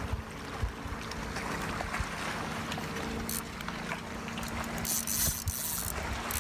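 Small boat on choppy lake water, with water lapping against the hull and wind rumbling on the microphone, under a faint steady low hum.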